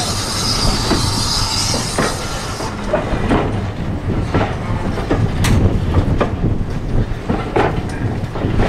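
Railway platform sound beside a steam-hauled train of coaches: a steady low rumble with irregular knocks and clunks about once a second.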